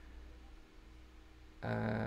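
Quiet room tone with a low, steady hum, then a short burst of a man's voice near the end.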